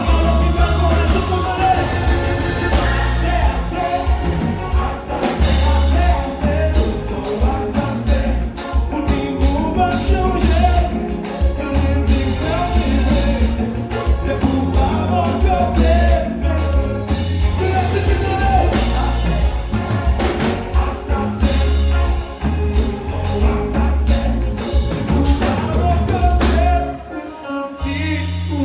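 Live band music played loud through the stage PA, with a male singer singing into a microphone over a heavy, pulsing bass line. Near the end the bass drops out briefly.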